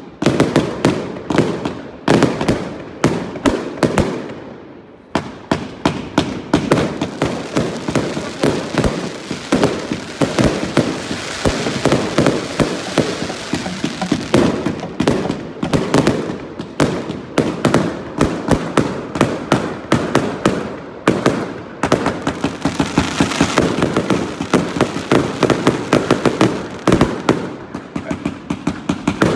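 Aerial fireworks going off in a continuous barrage of rapid bangs and crackling bursts, with a short lull about four seconds in.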